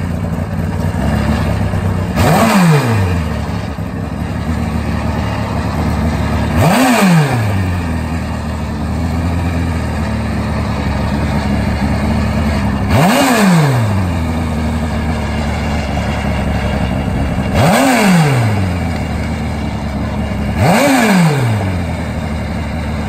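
Turbocharged Kawasaki KZ drag bike engine idling and being revved five times while staging at the start line, each rev a quick rise in pitch that falls back to idle.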